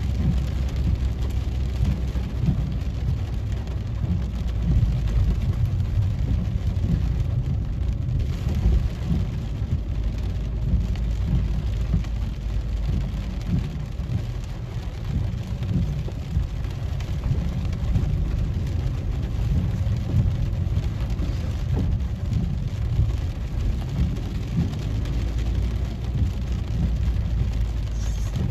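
Rain falling on a car's roof and windscreen over the steady low rumble of the car driving, heard from inside the cabin.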